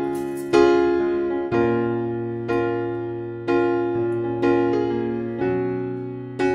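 Background music: soft electric piano notes struck about once a second, each ringing and fading away.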